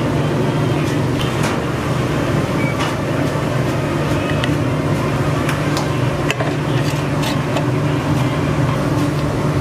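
Steady low mechanical hum, like a running engine or motor, with scattered light clicks and taps over it.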